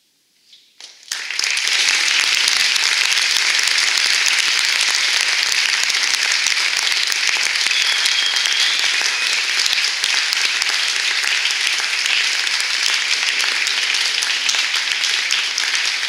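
A moment of near silence, then an audience starts applauding about a second in, a few single claps quickly filling into steady, dense clapping.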